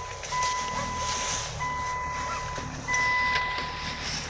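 An electronic warning beeper sounding a repeated steady beep, each beep about a second long, with short gaps between them, three times.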